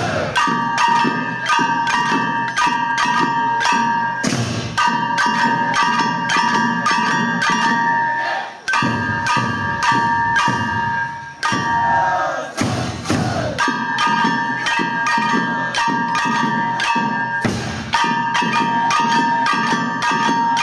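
Many small brass hand gongs (kane) struck rapidly with wooden sticks by a group of dancers, ringing at a bright metallic pitch. The strikes come in phrases of about four seconds, each broken by a brief pause, with a longer break about halfway through.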